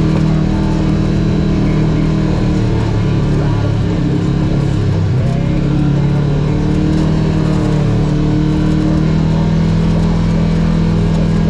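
A motor vehicle's engine running steadily, loud and close, its pitch dipping briefly about midway and then holding.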